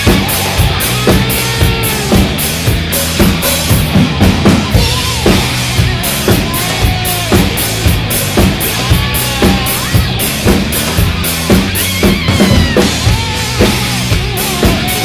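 Acoustic drum kit with Paiste PST cymbals played live in a steady rock beat, with bass drum and cymbal strokes, over a recorded rock band track with guitar.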